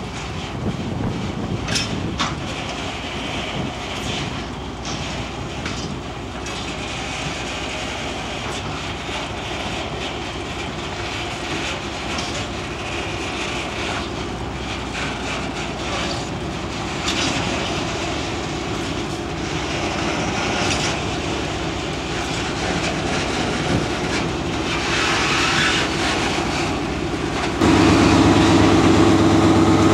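Lxd2 narrow-gauge diesel locomotive running as it moves a rake of standard-gauge open wagons, which roll along with a few sharp clanks in the first seconds. Near the end the engine's steady running jumps suddenly louder and closer.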